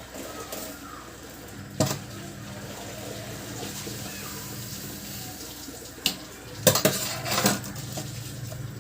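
Pot of lemon sugar syrup simmering on the stove with a steady hiss, with sharp metal clinks of a utensil against the pot about two seconds in and again in a cluster later on.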